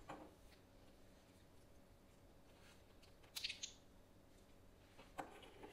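Near silence with a few faint clicks of small plastic LEGO pieces being handled and fitted together, the clearest about three and a half seconds in and another just after five seconds.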